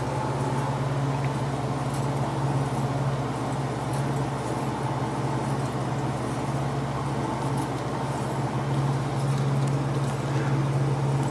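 Small CNC lathe running with a steady low hum.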